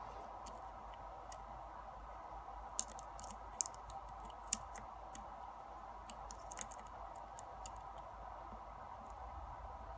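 Faint, scattered sharp clicks and ticks of a steel lock pick working the pin stacks inside a brass Yale lock cylinder under tension, with a small cluster of clicks about three to four and a half seconds in. The lock is held in a false set while the pins are being set.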